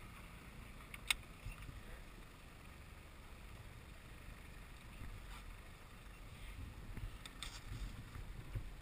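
Low, steady rumble of wind and water around a small aluminium boat drifting with no motor running, with one sharp knock about a second in and a few lighter knocks near the end.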